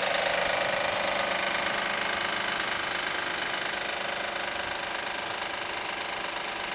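2007 Acura MDX's 3.7-litre V6 running with a steady knocking rattle, which the owner suspects is a worn belt tensioner. The sound slowly gets quieter.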